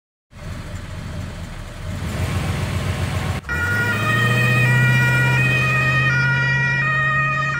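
A motor vehicle's engine running, then, from about three and a half seconds in, a police siren alternating between two pitches over the steady hum of the engine.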